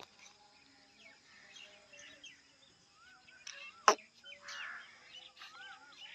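Several birds chirping with short rising-and-falling calls over a faint steady high tone, and a single sharp knock about four seconds in.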